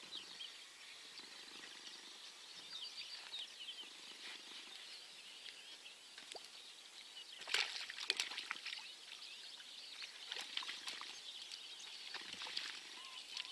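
Small birds chirping and twittering throughout. A little over halfway through comes a short burst of sharp splashing, the loudest sound, as a hooked fish thrashes at the surface close to the bank.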